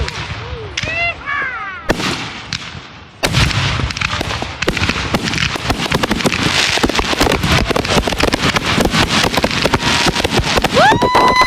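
Fireworks going off: sharp bangs near the start and about two seconds in, then from about three seconds in a dense, rapid crackling. Near the end a pitched tone rises and then holds steady.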